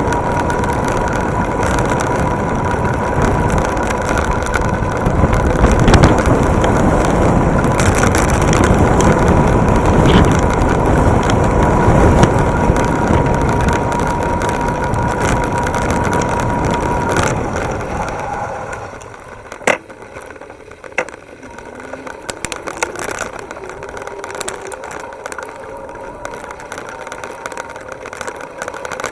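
Wind rushing over the microphone and road rumble from an electric bike riding fast, with a steady high whine. About eighteen seconds in the noise falls away as the bike slows, leaving quieter rattling and a couple of sharp clicks.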